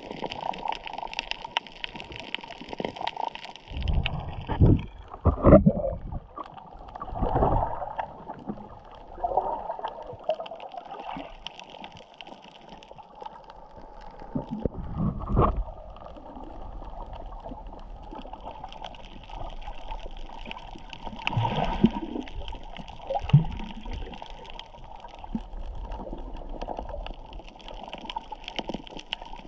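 Underwater camera sound while snorkelling: muffled gurgling and sloshing of water around the camera, with several louder swells at irregular intervals.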